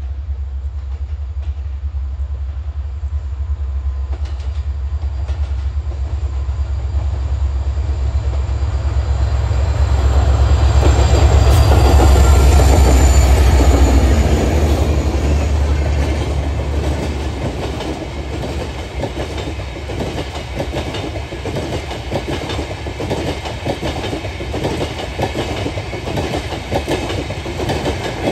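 WDP4 diesel-electric locomotive, with an EMD 16-cylinder two-stroke engine, approaching and passing with a deep engine rumble that is loudest about twelve seconds in. After it the LHB passenger coaches roll past, their wheels clicking in a steady rhythm over the rails.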